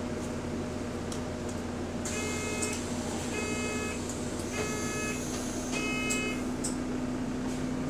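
Four short electronic beeps about a second apart from a bus's door warning buzzer, over the steady hum of the bus's running engine.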